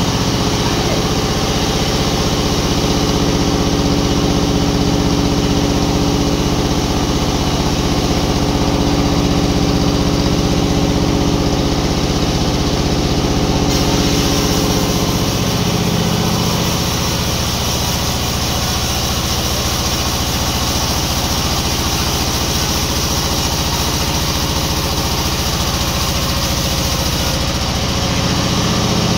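An engine running steadily at a constant speed, as with sawmill machinery, with a shift in its tone a little before halfway through.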